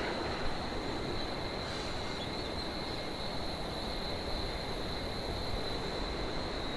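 Steady rush of river water over the waterfall cascades, with a constant high-pitched insect drone above it.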